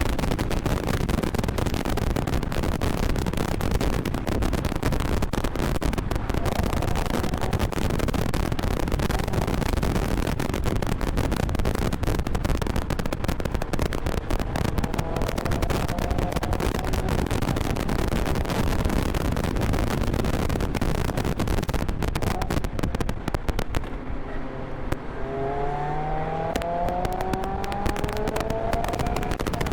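Onboard audio of a Mazda MX-5 ND roadster's four-cylinder engine at speed on a race track, mostly buried under loud crackling wind buffeting on the camera microphone. Near the end the wind drops and the engine is heard revving up again and again, rising in pitch with each gear.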